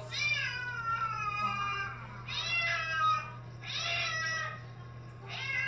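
A cat meowing in protest while being bathed: four long, drawn-out meows, the first sliding down in pitch.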